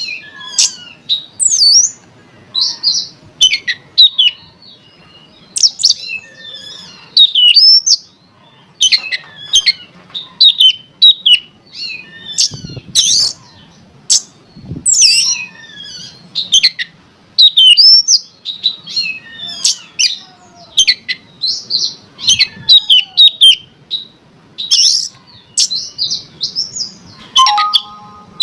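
Oriental magpie-robin (kacer) singing loudly in quick, varied whistled and chattering phrases, with a short harsh call near the end. It is the agitated song used as a lure to provoke other magpie-robins into singing.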